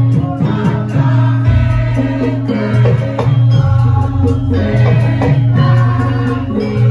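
Javanese gamelan music accompanying a lengger dance, with a singing voice over a steady deep sustained tone.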